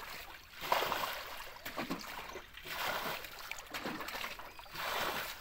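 Muddy pond water being bailed out with a tin can: repeated splashes as water is scooped and thrown, about four in a few seconds.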